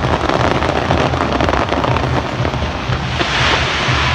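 Fireworks going off in a dense, continuous barrage of rapid bangs and crackles, with a brighter hissing burst a little after three seconds in.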